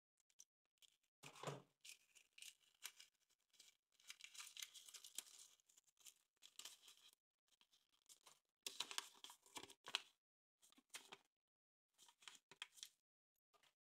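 Kinder Surprise egg's foil wrapper being peeled off and crinkled in several short bursts of crackling, with brief pauses between them.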